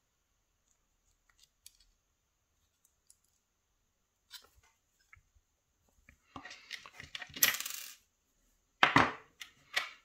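Small steel lock parts of a pump cylinder core clicking faintly as the sliders are pushed in. A little past halfway comes a burst of metallic clinking and clattering, then a single sharp knock about a second later.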